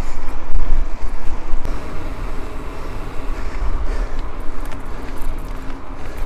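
Mountain bike being ridden on a dirt trail: uneven wind rumble on the action camera's microphone mixed with the noise of the tyres rolling over the ground, loud and steady.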